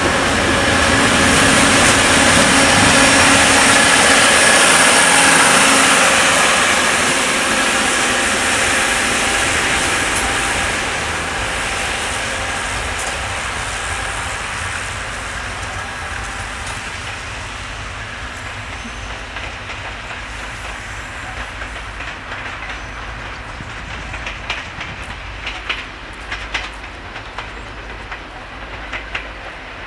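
Diesel multiple unit running close by, its engine and wheels loud for the first several seconds. It then fades to a quieter running sound with a series of short wheel clicks over the rail joints in the second half.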